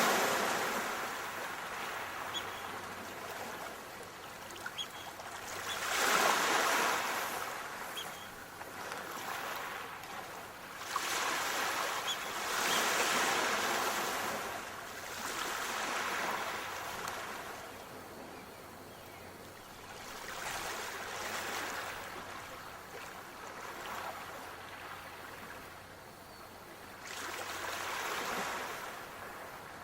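Sea waves washing ashore, a hiss that swells and ebbs every four to six seconds.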